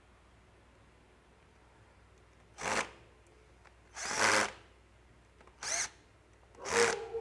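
Handheld power tool, like an electric drill or driver, run in four short bursts of about half a second each, spaced a second or so apart.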